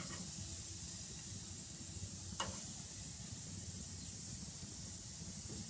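Pesto-marinated shrimp sizzling on a hot barbecue grill, a steady hiss with a low rumble underneath. A single sharp click about two and a half seconds in.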